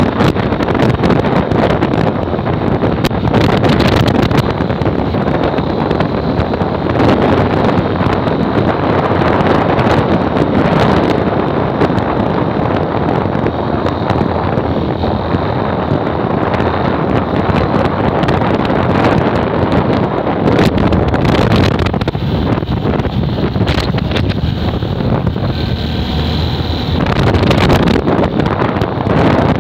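Wind rushing over the microphone of a moving motorcycle, a loud steady rush with the engine and road noise mixed in beneath it.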